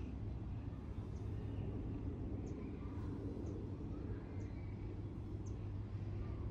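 Outdoor backyard ambience: a steady low hum, with a small bird giving a short, high, falling chip about once a second.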